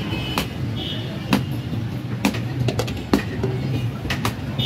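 Busy street noise: traffic runs steadily under a series of sharp, irregular clinks and knocks, with a brief high tone about a second in.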